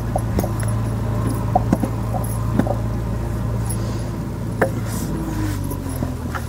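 A steady low engine hum whose pitch dips a little about five seconds in, with scattered light knocks and taps from hand-moulding bricks with wet clay in a wooden mould.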